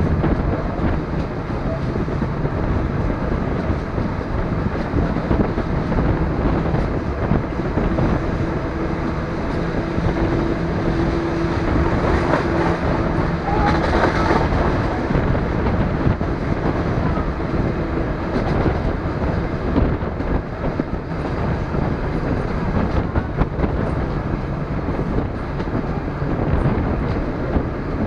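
DR1A diesel multiple unit running at speed, heard through an open carriage window: a steady rumble of wheels on rail and engine. A steady hum rides over it through the middle, with a louder rush about halfway through.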